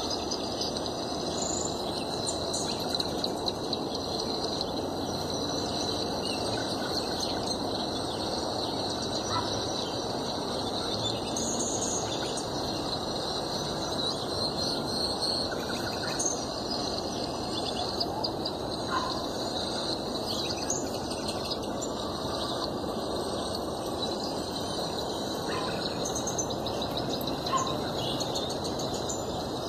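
Backyard songbirds chirping and singing, short calls scattered throughout, over a steady background hiss.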